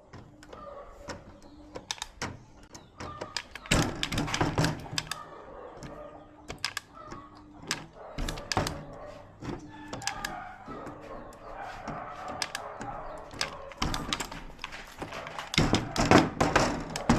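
Irregular clicks, taps and knocks of tools, wire and parts being handled on an electronics repair bench, with a louder cluster of knocks near the end.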